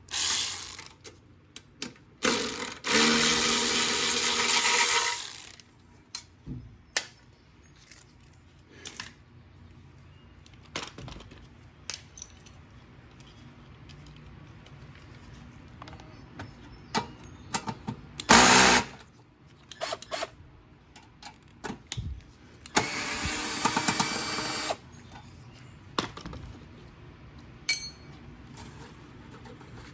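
Electric ratchet running in two bursts of two to three seconds, one near the start and one near the end, undoing the bolts on a mower engine's cover, with clicks and clatter of tools and parts being handled in between.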